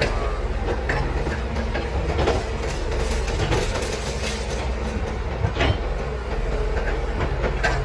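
Doosan 255LCV crawler excavator working: its diesel engine runs steadily under load while concrete debris knocks and clatters, with several sharp knocks spread through, the loudest a little past the middle.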